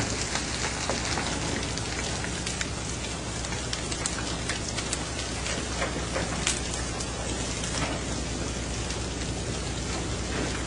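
Steady rushing of wind and sea water along a moving fishing vessel's hull over a low engine drone, with scattered sharp clicks and taps throughout.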